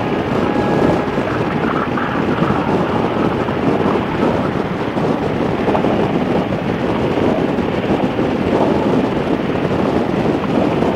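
Steady rush of wind over the microphone of a motorcycle riding at speed, with engine and road noise beneath it.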